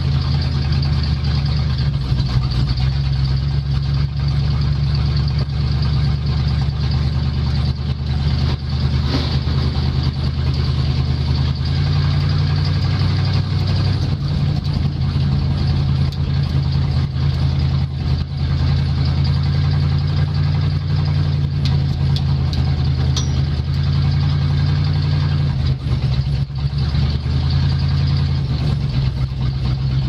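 Dirt-track race car engine running at low revs, heard from inside the cockpit as a steady low drone, with small shifts in pitch about twelve seconds in and again near twenty-five seconds.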